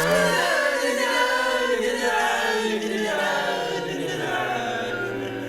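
A cappella voices singing a held chord that moves slowly and fades away.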